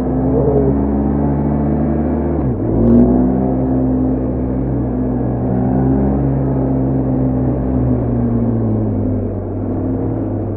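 BMW R1250GS Adventure's boxer-twin engine and exhaust running under way. The engine note steps about two and a half seconds in, holds steady, and eases off near the end.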